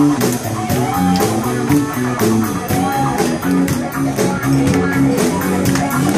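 Live cover band playing rock music: guitar over bass and a steady drum beat of about four hits a second.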